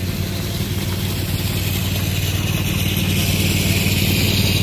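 A 4.75-inch-gauge ride-on miniature locomotive running along the track toward the listener: a steady low engine hum, with a hiss that grows louder over the last couple of seconds as it comes closer.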